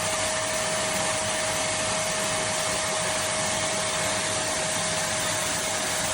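Kärcher WD 2 Plus wet and dry vacuum cleaner running steadily: an even rush of air with a steady high motor whine.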